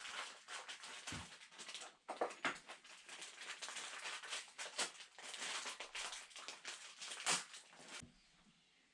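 Close-up handling noise of fitting a new timing belt tensioner: a run of light clicks, rustles and small metal knocks, with a few sharper taps, dying away near the end.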